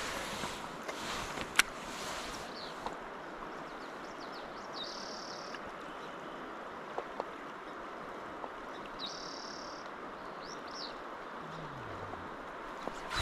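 Steady rush of a river flowing over a rocky bank. A bird calls a few times with short high notes, about 5 s and 9 s in, and there is one sharp click about a second and a half in.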